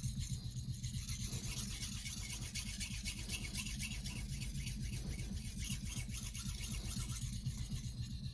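Steel of a Shun nakiri blade scraping steadily against a sharpening stone as it is ground.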